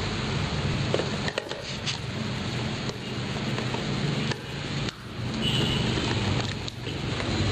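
LG twin-tub washing machine's wash motor running under test, a steady low electric hum with mechanical noise that dips briefly a few times. It turns well in one direction; this is the faulty motor, which the owner says shorts out when it tries to reverse.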